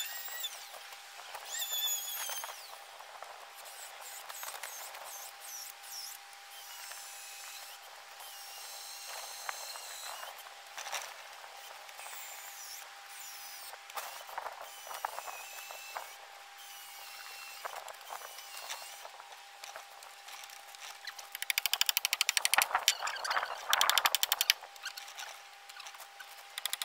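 Cordless impact driver hammering in a fast, even rattle for about three seconds near the end, driving a screw into timber. Before it, only faint high chirps over a steady hum.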